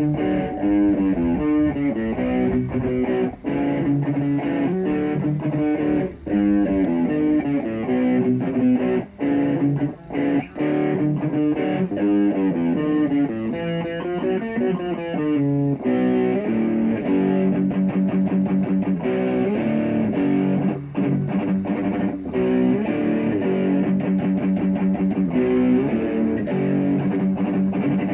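A guitar playing a run of picked and strummed chords, broken by a few short pauses in the first half. From about halfway through, the chords ring fuller and more steadily.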